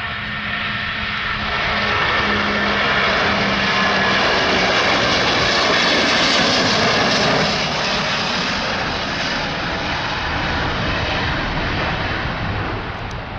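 Airbus A330 twin-engine jetliner passing close by. Its engines' roar and whine grow louder to a peak about halfway through, then ease off and fade as it moves away.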